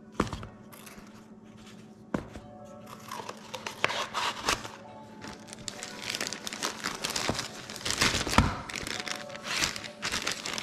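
Plastic zip-top bag crinkling and a small cardboard box being handled, with a few sharp clicks, over soft background music.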